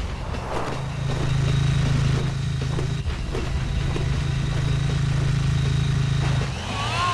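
Cartoon engine sound effect of quad bikes (ATVs) running at speed, a steady low drone that fades out about a second before the end, when a few short rising-and-falling squeals come in.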